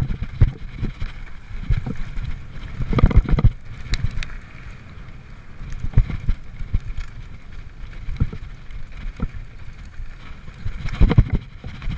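Mountain bike descending a rough dirt trail at speed: wind buffeting the camera's microphone over a steady rumble of tyres on dirt, with frequent knocks and rattles of the bike over bumps, bunching into heavier clattering about three seconds in and again near the end.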